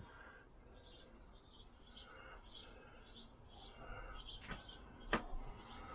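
Faint bird chirps repeating two to three times a second, with a sharp click about five seconds in.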